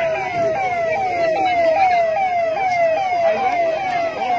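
Electronic emergency-vehicle siren on a fast repeating cycle, each note dropping in pitch, about two and a half notes a second.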